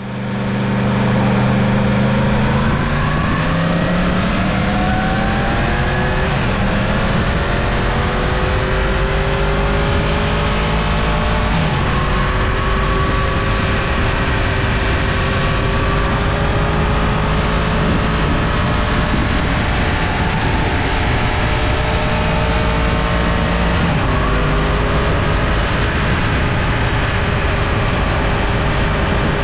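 Yamaha FZ-10's crossplane inline-four engine pulling the motorcycle up through the gears. The pitch holds steady for about two seconds, then climbs, dropping sharply at upshifts about 6, 12 and 24 seconds in before climbing again.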